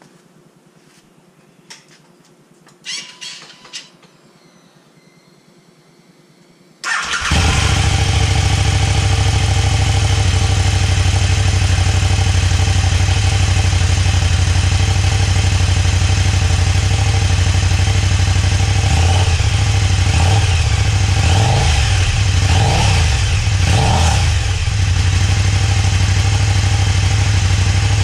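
KTM 1290 Super Duke R's V-twin engine on its stock exhaust, starting about seven seconds in after a few faint clicks and settling into a steady idle around 2,000 rpm. Near the end it is blipped several times in quick succession, stepping up to about 3,000, 4,000 and then 5,000 rpm.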